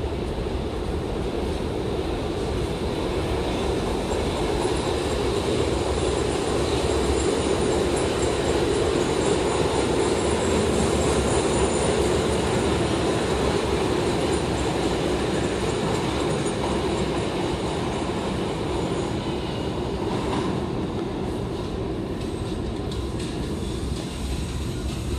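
A Moscow Metro train running along the station platform: steady rumble and rail noise from wheels and motors that builds to its loudest about halfway through, then slowly eases off.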